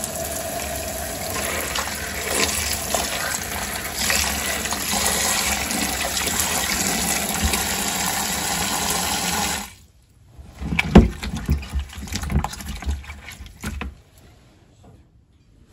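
Kitchen tap spraying water onto broccoli and a bell pepper in a plastic colander in a stainless steel sink, a steady splashing rush that cuts off suddenly about ten seconds in. A few irregular knocks and clicks follow for several seconds.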